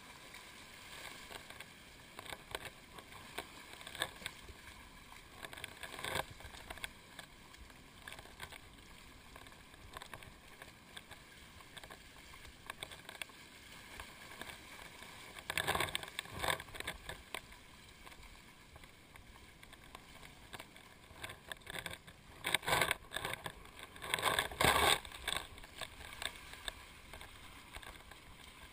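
Sea water lapping and splashing right at the microphone, with louder clusters of splashes about halfway through and again near the end.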